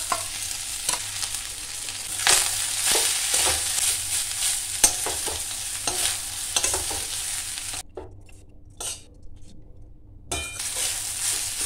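Lemon rice being stirred in a steel kadhai with a metal spatula: steady sizzling with frequent scrapes and clicks of the spatula against the pan. The sizzle drops away abruptly about eight seconds in for a couple of seconds, then resumes.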